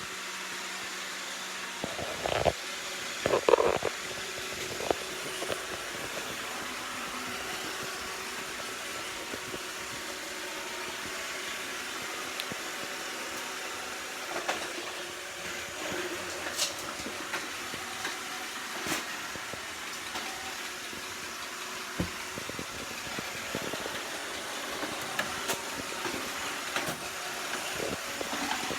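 iRobot Roomba 690 robotic vacuum running with a steady whirring hiss, with a few louder knocks a few seconds in and scattered light clicks.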